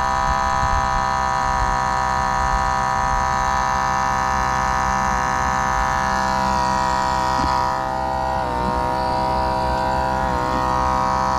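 Small electric air pump aerating a live-bait tub, giving a steady buzzing hum. Its pitch sags briefly twice in the second half.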